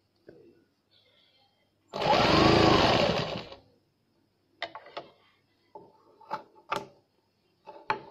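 Electric sewing machine running in one short burst of about a second and a half, its motor speeding up and then slowing. A few light clicks follow.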